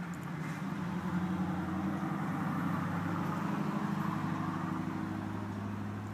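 Steady, low engine-like hum that grows louder about a second in and eases off near the end.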